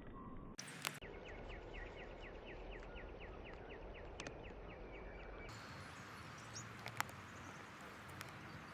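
Backyard birds: one bird gives a quick series of short falling chirps, about three a second, among scattered clicks and taps. The background hiss changes abruptly twice.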